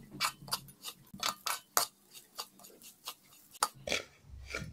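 A spatula scraping and tapping a non-stick pan while stirring semolina as it roasts: short, sharp clicks about three or four a second, unevenly spaced.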